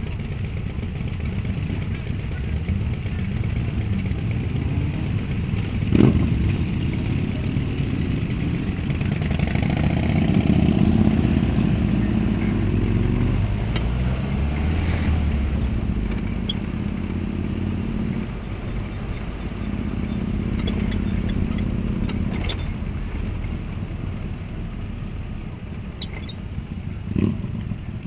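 Motorcycles and trikes riding slowly past one after another, their engines swelling and fading as each goes by. Two sharp knocks are heard, one about six seconds in and one near the end.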